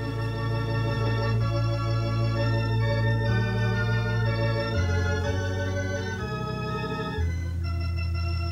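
Organ playing slow, sustained chords over long held bass notes, the chords changing every second or so.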